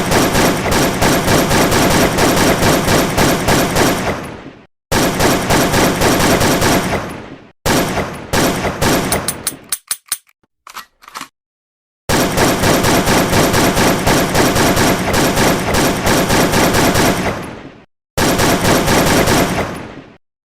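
Automatic gunfire: long bursts of rapid shots that stop abruptly, with a few scattered single shots and short bursts around the middle.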